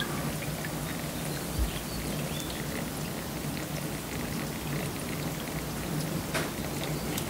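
Rainwater running down inside a concrete block cellar wall during heavy rain: a steady rush with scattered drips and ticks. This is the water getting into the foundation wall that causes the wet cellar.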